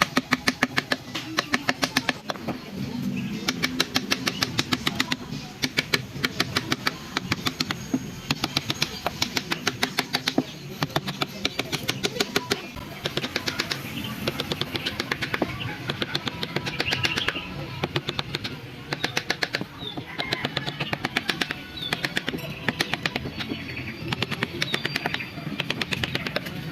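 Rapid tapping on wood, about five strikes a second in spells with short pauses, as a carving chisel is driven with a mallet. Faint background music plays under it.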